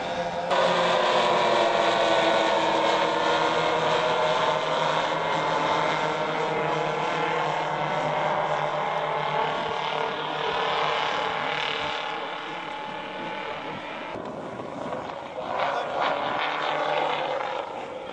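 The four engines of a giant radio-controlled B-29 scale model droning in flight, a steady multi-engine hum that gradually fades as the plane flies away.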